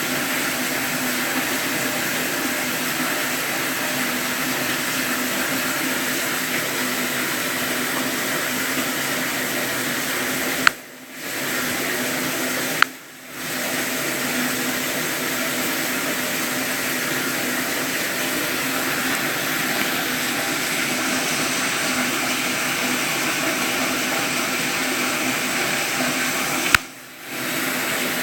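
Steady rushing of running water, broken three times by a sharp click, each followed by a brief drop in the water sound.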